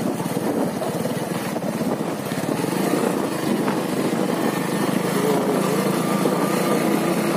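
Motorcycle engine running steadily while riding along.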